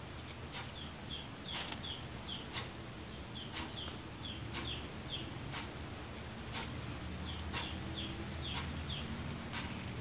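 A small bird chirping in the background, short falling chirps in twos and threes, with scattered sharp clicks and a low steady hum underneath.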